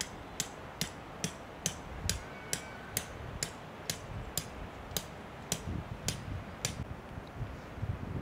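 A steady run of sharp, evenly spaced mechanical clicks, about two and a half a second, that stops near the end.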